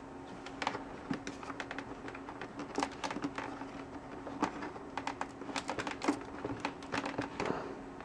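Quiet handling of a plastic 8-pin mini-DIN plug and its cable inside a helmet shell: scattered small clicks, taps and rustles as the plug is worked into its socket, more frequent in the second half.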